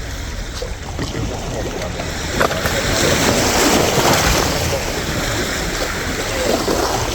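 Wind rushing across the microphone outdoors, a steady noisy rush that swells for a couple of seconds about three seconds in.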